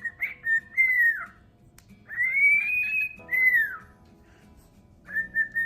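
Pet bird whistling a song it was taught. Clear whistled phrases with a pause between them, ending on a long held note.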